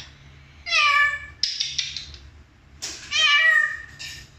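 A pet parrot imitating a cat's meow twice, with a quick run of sharp clicks between the two meows.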